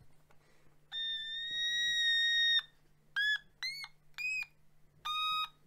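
Otamatone playing high electronic notes with its volume switched to high. First one long held note, then three short notes stepping up in pitch, each bending upward at its start, then a lower note near the end.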